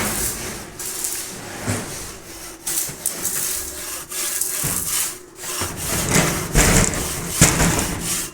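Electric arc welding: an irregular crackling sizzle that surges and dips as the rod burns.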